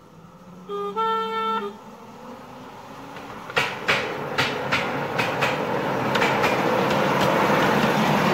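Miniature railway train whistle sounded briefly about a second in, a short lower note then a longer higher one. From about three and a half seconds a train approaches, its wheels clicking in pairs over the rail joints as the running noise grows louder.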